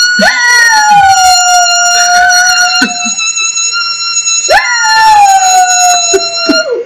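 A dog howling: two long howls, each jumping up in pitch at the start and then sliding slowly down, with a short break between them.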